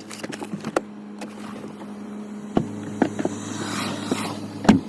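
A car idling with a steady hum, heard from inside the cabin, broken by several sharp knocks and thuds as the car's doors and trunk are opened and shut; the loudest knock comes near the end.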